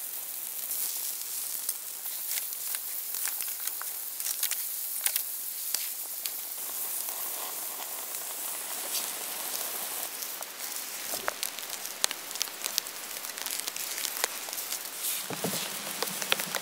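Wood campfire burning, crackling with sharp, irregular pops over a steady hiss.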